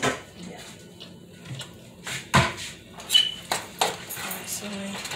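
Kitchen utensil clatter: a spoon stirring and knocking in a pot of macaroni and cheese, a string of short sharp knocks, the loudest about two and a half seconds in.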